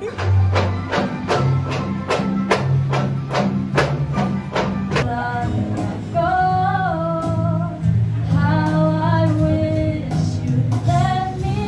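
Music with singing: a quick, steady beat over a bass line for about five seconds, then a voice singing a melody over the accompaniment from about six seconds in.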